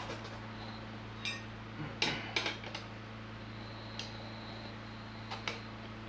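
Metal tire spoons clicking and scraping against a motorcycle wheel rim while prying the tire bead, with a cluster of sharp clinks around two to three seconds in, over a steady low hum.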